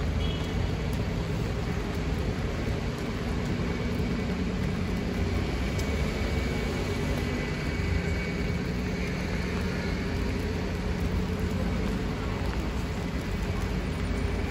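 Steady city traffic noise on a wet street: a constant hiss with a low engine hum underneath.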